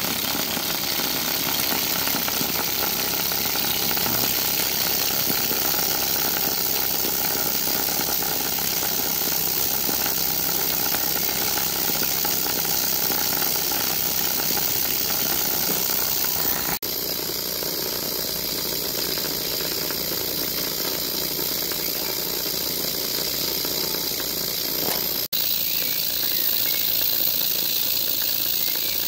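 Stuart ST single-cylinder oscillating model steam engine running steadily on steam with a fast, even beat.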